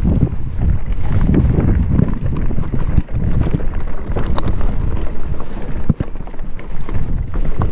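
Heavy wind buffeting the microphone of a rider moving fast, with the rattle and scattered knocks of a mountain bike going over rough trail, one sharp knock about six seconds in.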